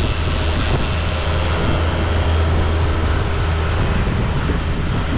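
Motorboat running at speed: a steady low engine drone under the loud rush of wake water and wind.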